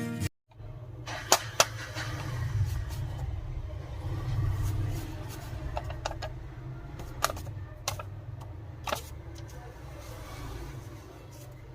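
Small sharp clicks and taps, as of tools and parts being handled during a phone repair, over a steady low rumble.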